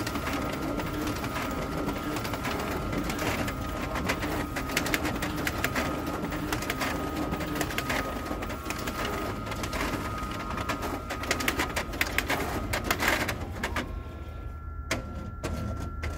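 Xerox AltaLink B8055 office copier/printer running a print job: feed rollers and paper path whirring with a steady high whine and rapid clicking and rattling as sheets pass through to the output tray. The clatter dies down about two seconds before the end, leaving a hum, the whine and a single sharp click. The squeaky, rough running is a sign of a heavily used machine whose feed mechanism is worn and due for a rebuild.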